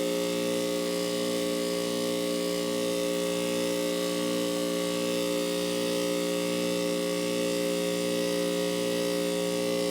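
Heil 5000 two-ton heat pump running in its defrost cycle: a steady humming drone with a faint regular pulse a little more than once a second.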